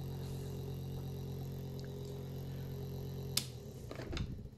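MY1016 brushed DC motor running with a steady hum. About three and a half seconds in, a sharp snap, a spark that discharges the power supply's electrolytic capacitor, and the hum stops as the motor runs down with a few small clicks.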